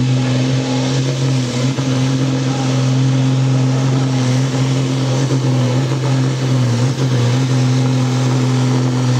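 Deutz 8006 tractor's diesel engine running under full load, held at steady high revs while it drags a weight-transfer pulling sled down the track.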